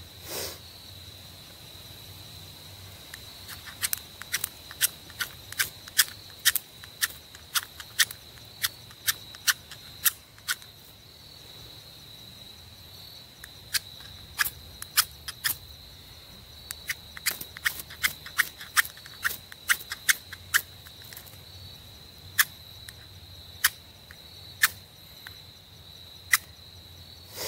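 Steel striker scraped again and again down a hard ferrocerium rod: dozens of quick, sharp scrapes in bursts, with a short lull about halfway through, as the sparks fail to light the tinder. A steady high insect drone runs underneath.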